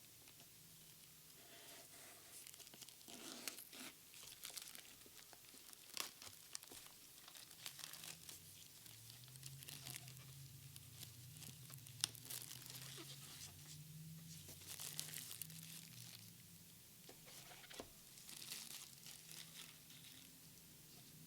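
Thin plastic packaging being torn and crinkled by hand: a faint, irregular run of sharp rips and crackles.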